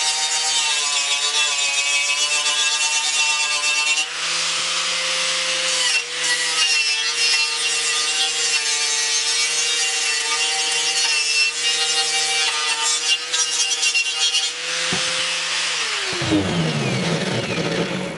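Skil angle grinder with a twisted-knot wire cup brush running against a painted steel truck grille piece, the wire scrubbing off paint and rust ahead of primer. About fifteen seconds in the grinder is switched off and its motor winds down, its pitch falling.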